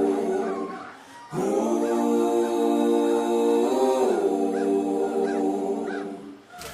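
Background music of held, wordless choir-like vocal chords, dipping briefly about a second in and fading out near the end.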